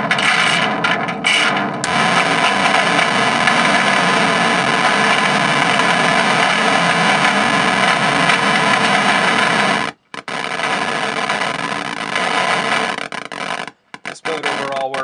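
Harsh, heavily fuzzed noise from an aluminium shaving scraped on a contact microphone and run through an RMA Mudlark fuzz pedal. It breaks up at first, runs dense and steady, cuts out suddenly about ten seconds in, then stutters on and off near the end.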